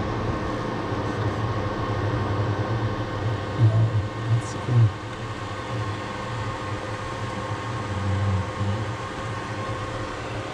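DeepSee submersible's machinery humming steadily inside the cabin, a low hum with several steady tones, swelling briefly a few seconds in and again near eight seconds.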